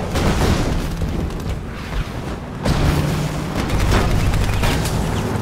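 Battle sound effects: repeated gunshots and explosions over a dense low rumble, with one heavy blast a little under three seconds in.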